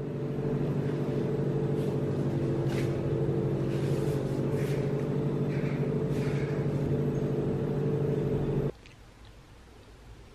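A steady hum from a machine, made of several even pitches, that cuts off suddenly near the end. A few faint clicks sound over it.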